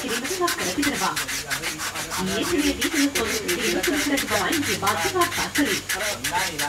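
Hand sanding of a carved wooden elephant's body: sandpaper rubbed quickly back and forth over the wood, several scratchy strokes a second, smoothing the surface in the finishing stage.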